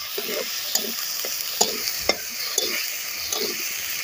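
Metal spatula scraping and stirring spice paste and chopped tomatoes around a large metal kadai, in short strokes about twice a second, over a steady sizzle of frying in oil.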